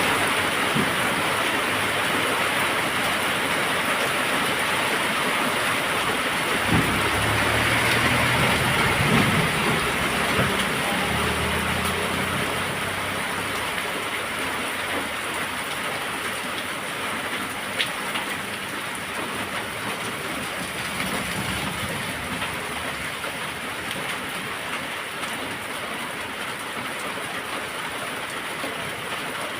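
Heavy rain falling steadily in a dense, even hiss, easing slightly over the second half. A low rumble joins it from about seven to twelve seconds in, and there is a single sharp tick a little past halfway.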